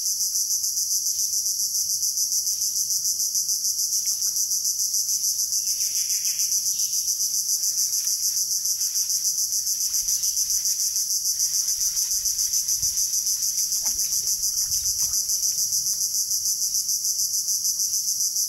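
Insect chorus: a high-pitched, shrill buzzing with a fast, even pulse.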